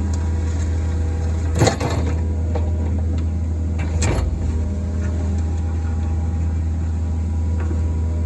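Kobelco SK55 mini excavator's diesel engine running steadily at working speed, with two sharp clunks from the machine about one and a half and four seconds in.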